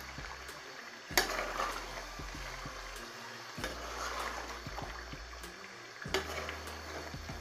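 Chicken curry liquid bubbling in a pot on high flame while potatoes are added and stirred in, with a sharp clank of a utensil against the pot about a second in and another about six seconds in.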